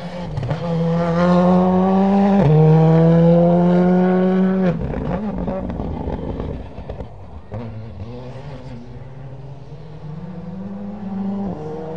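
Skoda Fabia Rally2 rally car's turbocharged four-cylinder engine pulling hard on a gravel stage. The pitch climbs through a gear, drops at an upshift about two and a half seconds in, and climbs again until the driver lifts off sharply near the five-second mark. It then runs lower and quieter for several seconds and builds again near the end.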